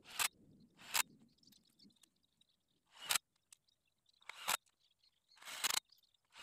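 About six sharp, short clicks, irregularly spaced one to two seconds apart, with a slightly longer one near the end, from hand work on a greenhouse door.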